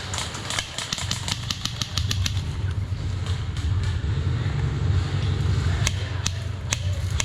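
Airsoft guns firing: a rapid string of sharp shots, about ten a second, in the first second and a half, then a few single shots near the end, over a steady low rumble.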